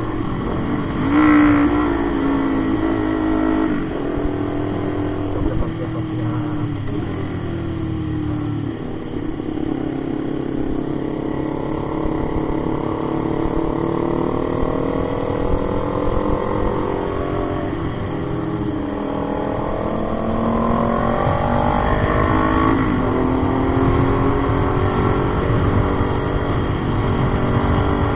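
Motorcycle engine running while riding, its pitch rising and falling as the rider speeds up and eases off, with a short, loud rev about a second in.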